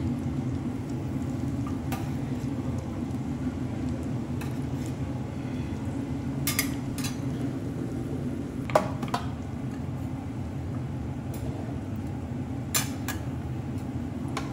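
Metal spatula clinking and tapping on a steel teppanyaki griddle: several sharp clinks, the loudest about nine seconds in, over a steady low hum.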